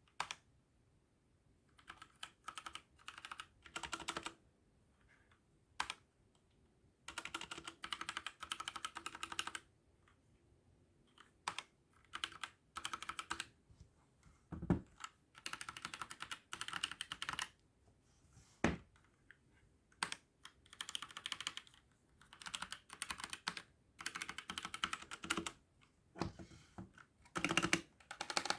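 Typing on a Trust GXT 865 Asta mechanical keyboard with red linear switches. Runs of rapid keystrokes come in bursts of a second or two with short pauses between them, and a few single, sharper key strikes stand out.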